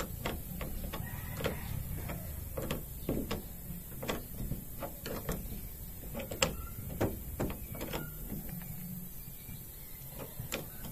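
Metal wrench clicking and tapping on the rear wiper arm's retaining nut as it is tightened in short strokes: irregular sharp ticks, one or two a second, over a low steady rumble.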